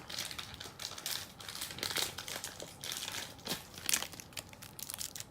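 Plastic packaging of a toy booster pack crinkling and rustling in the hands as it is opened, with irregular crackles and a few sharper snaps.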